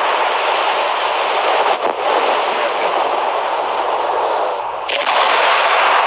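Dense, continuous crackling of a fireworks barrage, many reports running together into one roar. It dips briefly about two seconds in and shifts abruptly near the end.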